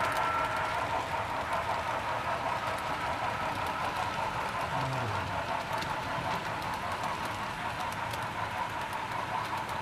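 Model freight train running along the layout's track: a steady rolling whir with faint scattered clicks from the wheels.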